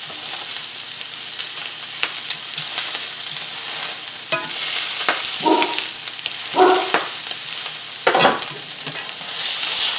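Wagyu steak searing in hot oil in a frying pan on a high burner: a steady sizzle, with a few brief louder knocks in the second half.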